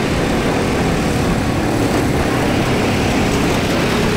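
Motorcycle on the move: a steady engine drone under a heavy, even rush of wind noise on the microphone.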